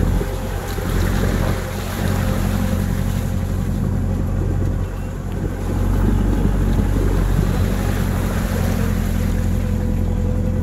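A vehicle engine runs with a steady low drone while driving over a muddy dirt track, with wind noise on the microphone.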